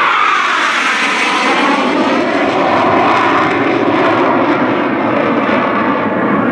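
Aermacchi MB-339PAN jet trainer's Rolls-Royce Viper turbojet passing close: a loud whine that falls in pitch over the first second or so as the jet goes by, then a steady jet roar as it climbs away into a loop.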